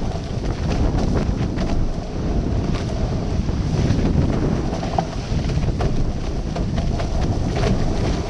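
Heavy wind buffeting the microphone of a camera on a sailing catamaran, over the rush of the hulls through the water and splashing spray, with scattered short sharp slaps and clicks.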